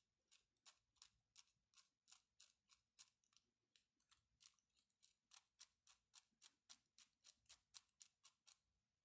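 3D-printed plastic mechanical counter clicking as it is advanced by hand: a regular run of short, sharp clicks, about three a second, with a brief pause about a third of the way in.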